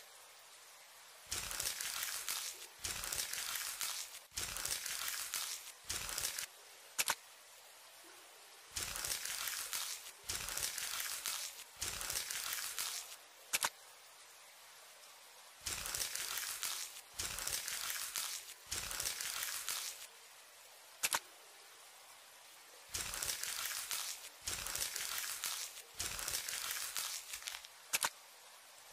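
ASMR sound effects for a knife scraping bugs out of a wound: scratchy, crackly bursts about a second long, coming in runs of three with short pauses, and a single sharp click between runs.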